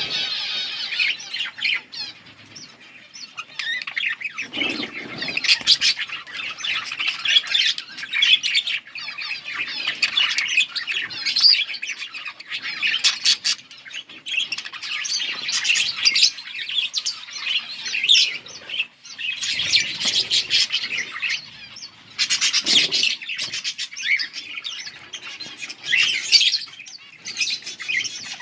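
Pet budgerigars (budgies) chirping and warbling in a dense, near-continuous chatter, broken by short pauses, with a couple of brief lower rustles.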